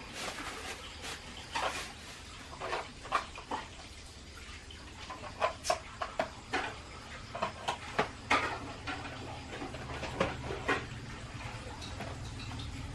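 Irregular plastic clicks, knocks and rattles as vacuum cleaner parts are handled and fitted together. A faint low steady hum comes in past the middle.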